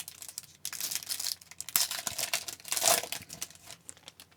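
A trading card pack's wrapper crinkling and being torn open, in dense crackling bursts that fade out near the end.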